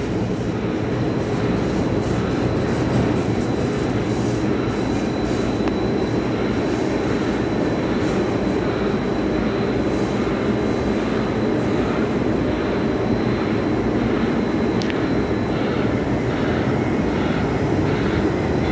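Steady low rumble of heavy port machinery from a ship-to-shore container crane and the ship alongside, with a faint high whine for most of it and a single sharp click about fifteen seconds in.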